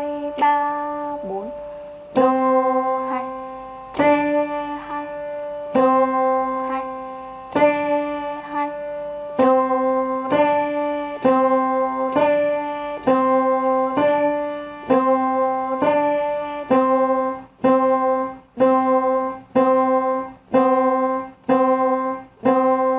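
Piano playing a simple beginner melody with the right hand on just two notes, middle C and D, one note at a time. The notes are held longer at first, then become short, detached and evenly paced, about one a second, from about two-thirds of the way in.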